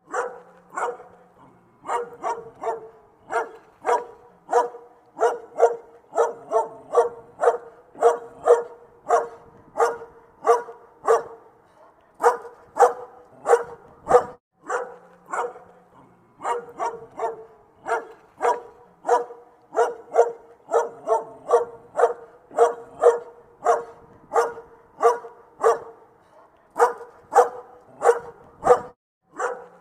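A dog barking over and over, about two sharp barks a second, with brief pauses near the middle and the end.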